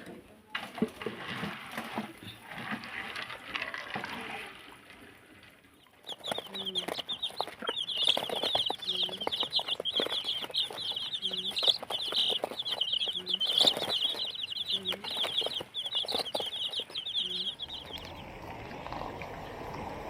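Chickens clucking: low clucks every couple of seconds over a dense, high chirping. It starts about six seconds in and stops a little before the end.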